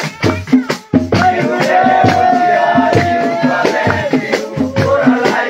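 Pahari folk dance music with a steady, quick drum and rattle beat; about a second in, a long held melodic note rides over the beat for a couple of seconds before the rhythm takes over again.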